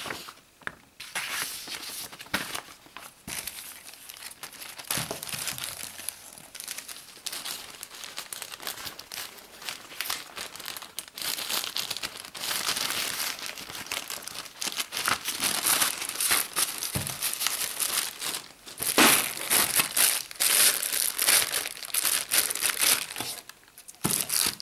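Plastic packaging bags crinkling and rustling as they are handled and pulled out of a box, in irregular handfuls, loudest about three quarters of the way through.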